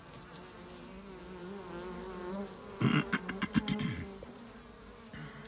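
Honey bees buzzing around a bar of queen cells: a steady hum that wavers slightly in pitch. About three seconds in comes a louder second of knocking and rustling.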